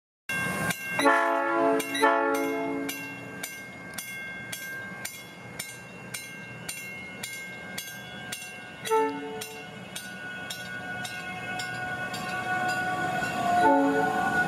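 A South Shore Line electric commuter train sounds its horn: two blasts about a second in, a short toot near nine seconds and another near the end. A bell clangs about three times a second throughout, and the train's running noise builds as it rolls past.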